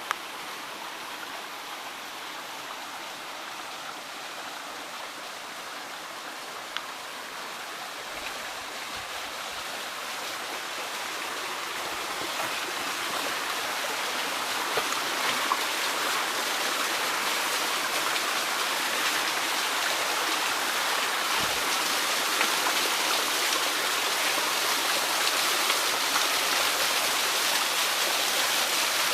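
A small waterfall: water pouring and splashing in a steady rush that grows gradually louder through the second half.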